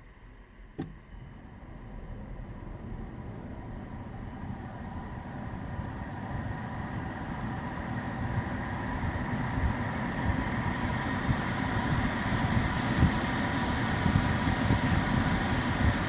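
Mitsubishi Outlander PHEV's climate control starting up by remote command, heard from inside the cabin: a single click about a second in, then the air-conditioning fan running with a steady whine, growing gradually louder as it spins up.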